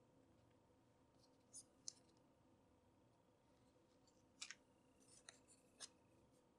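Faint handling noise of cardboard packaging: a handful of light clicks and scrapes as card inserts are lifted out of a cardboard box, over near-silent room tone.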